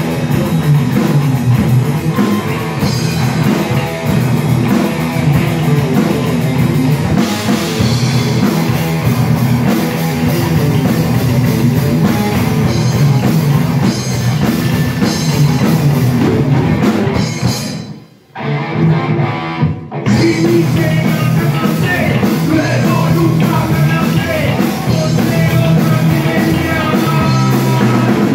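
Live heavy rock band playing loud, with distorted electric guitars and a drum kit. About two-thirds of the way through, the band stops short for about two seconds, then comes back in.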